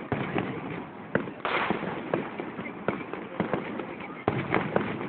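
Aerial fireworks display: a string of sharp, irregular bangs and pops from bursting shells, with a short hissing rush about a second and a half in.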